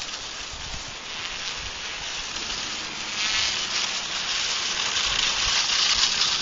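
Electric motor and propeller of a Parkzone T-28 Trojan model plane buzzing as it taxis on its floats across snow, getting louder about three seconds in.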